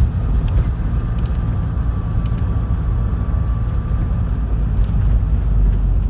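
Toyota HiAce minibus driving, its engine and road noise a steady low rumble heard from inside the cabin. A faint high whine comes and goes in the middle.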